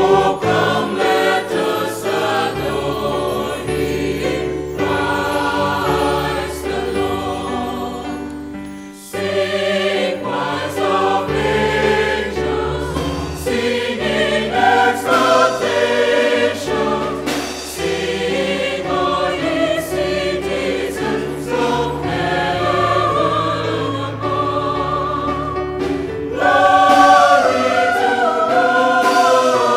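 Mixed choir of women's and men's voices singing a carol. The singing breaks briefly about nine seconds in before the next phrase.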